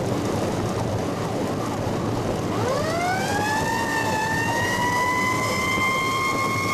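Fire truck siren winding up from a low pitch about two and a half seconds in, rising and then holding a steady high wail, over the rumble of the truck's engine and road noise in the cab.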